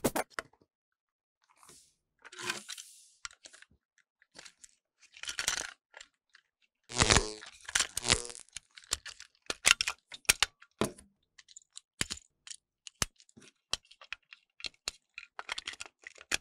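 Hands handling hard plastic: a snack canister and a small plastic toy train engine, giving scattered clicks, taps and rustles. A louder rustling scrape lasts about a second, some seven seconds in, followed by a run of quick small clicks.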